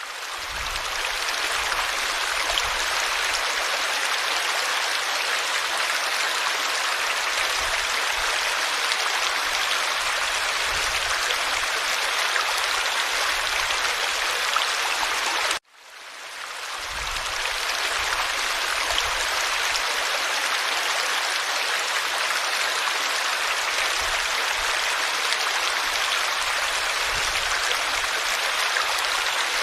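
Forest stream flowing steadily, a dense even rush of water over stones. About halfway through it cuts out for an instant, then swells back in over a couple of seconds.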